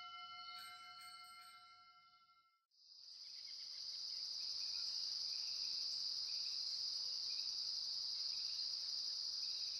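A bell-like chime tone rings out and fades away over the first two and a half seconds. After a brief silence, crickets fade in and chirp steadily in a high, continuous chorus.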